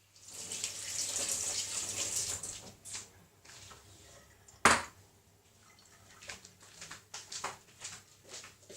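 Kitchen tap running for about two seconds while hands are rinsed, then one sharp knock a little under five seconds in, followed by light scattered clicks and taps.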